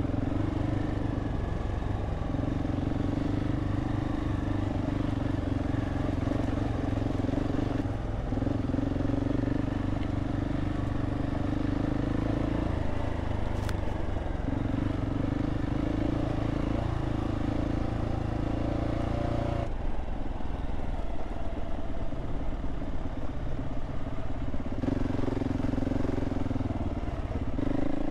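Adventure motorcycle engine running under way on a dirt track, heard from the rider's own bike. The engine note shifts every few seconds as the throttle changes.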